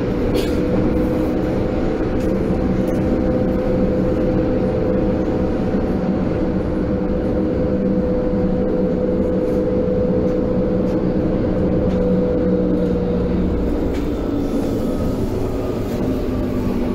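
Berlin U-Bahn H97 train running, heard from inside the passenger car: a steady rumble of wheels on rail with a constant whine, whose pitch drops a little near the end.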